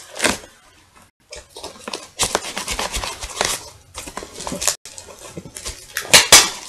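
Fingers scratching and picking at clear packing tape on a cardboard parcel, with tape pulling away and rustling in irregular bursts and sharp clicks; the loudest rips come about six seconds in.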